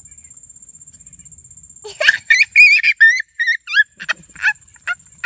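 A high-pitched voice squealing: a run of about eight loud, short squeals with wavering pitch, starting about two seconds in.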